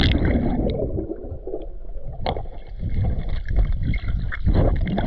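Muffled underwater gurgling of air bubbles as a swimmer blows out underwater, heard through a submerged camera, with scattered clicks and one sharp click about two seconds in.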